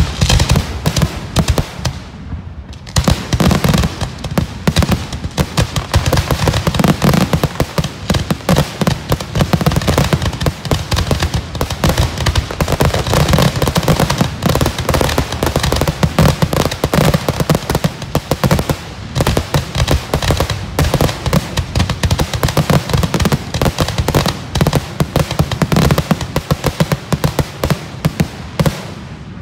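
Aerial fireworks finale barrage at close range: a rapid, nearly continuous string of bangs from shells being launched and bursting, after a short lull about two seconds in.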